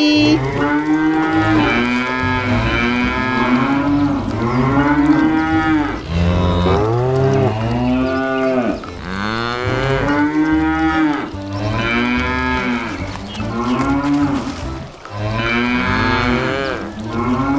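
Battery-operated toy cow playing recorded mooing, one moo after another with hardly a pause.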